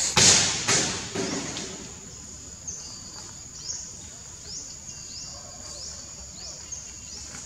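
Forest insects making a steady high-pitched drone, with short rising chirps repeating about every two-thirds of a second. A brief loud burst of rustling noise at the start is the loudest sound.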